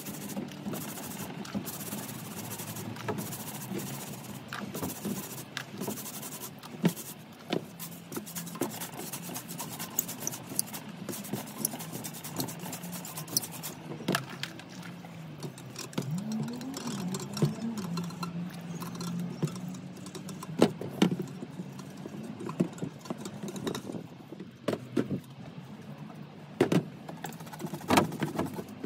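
A sponge scrubbing a wet, soapy knobbly mountain-bike tyre: a scratchy rubbing through the first half, with scattered clicks and knocks from handling the wheel. A low steady hum runs underneath, and a few sharp clicks stand out near the end.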